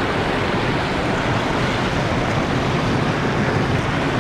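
White water pouring steadily over a concrete weir spillway, a loud, even rush of water.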